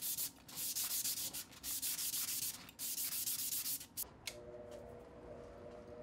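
Abrasive paper being rubbed by hand along a steel bicycle frame tube: about four long back-and-forth sanding strokes, then a short one, cleaning the bare metal. A quieter steady whine comes in about four seconds in.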